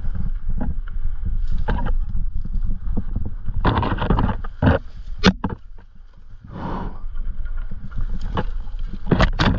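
Bushes and branches scraping and swishing against a mountain bike and rider pushing through dense overgrowth, in repeated short bursts with a longer one about four seconds in, over a steady rumble of wind on the microphone.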